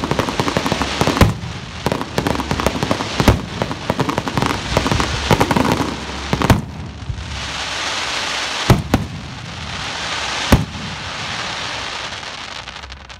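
Fireworks display of aerial shells and ground fountains: dense crackling with several loud booms over the first half, then a steady hiss broken by a few sharp bangs, fading near the end.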